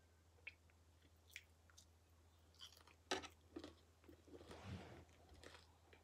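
Quiet, close-miked chewing of crispy bacon: scattered mouth clicks and small crunches, the loudest about three seconds in, then a longer stretch of chewing about four and a half seconds in.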